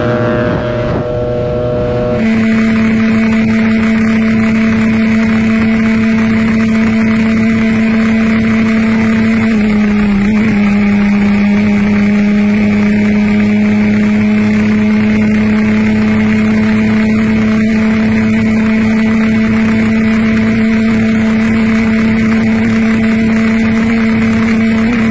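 Motorcycle engine held at high revs at full speed, a loud steady drone with wind rush, its pitch dipping briefly about ten seconds in before settling again.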